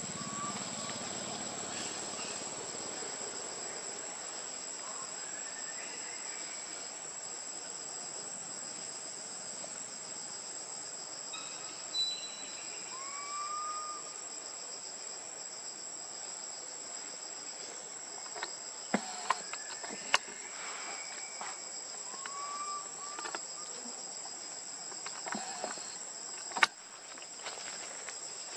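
Steady, high-pitched drone of insects, with a few short arched chirps and several sharp clicks in the second half.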